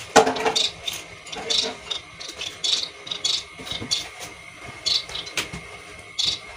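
Caged finches chirping: short, high calls repeated irregularly about every half second. A sharp click comes about five and a half seconds in.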